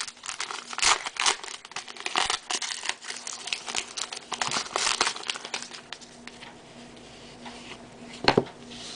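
Baseball trading cards being handled and sorted by hand, with crinkling and rustling of cards and packaging. It goes quieter for a couple of seconds near the end, then there is one sharp tap.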